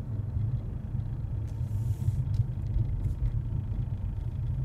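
Low, steady rumble inside a car cabin while cruising at about 25 to 30 miles an hour: a driveline noise that seems to come from below the glove box console, over the road noise.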